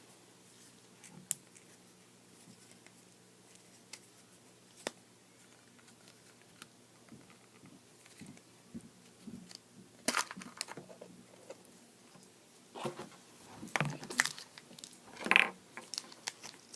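Scattered small clicks and taps of a surprise egg and its wrapping being handled, with a few louder crinkles and rustles in the second half as it is worked open.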